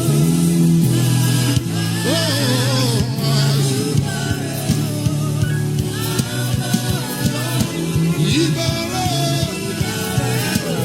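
Live gospel worship music: a band holds sustained chords with drum hits while voices sing long, wavering notes without clear words.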